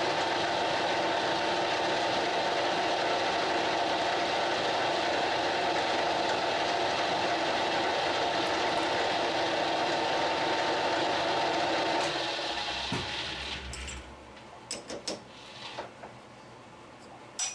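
Metal lathe running with its three-jaw chuck spinning: a steady machine sound with a constant gear whine. About twelve seconds in it winds down and stops, followed by a few light clicks and knocks.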